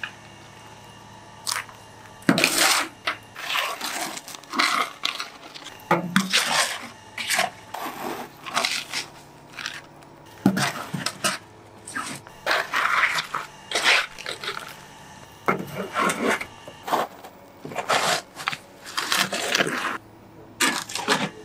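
Metal shovel scraping and crunching through hot ash, embers and loose bricks in a brick roasting pit, in irregular strokes, as clay-wrapped beggar's chickens are dug out of the ash.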